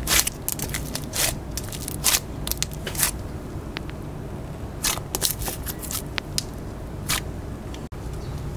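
Slime being squished and poked by hand, giving irregular small pops and clicks.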